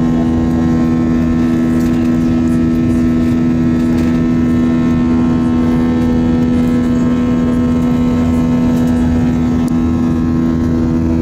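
Airbus A320 cabin noise while climbing after takeoff: the twin jet engines' steady low hum, with a constant deep tone over an even rush of air.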